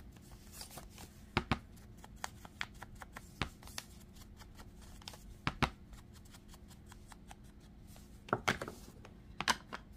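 Round foam ink blending tool dabbed onto a Distress ink pad and rubbed over the edges of a paper cutout to darken them: scattered soft taps and scuffs at uneven intervals, several in quick pairs, with light paper handling.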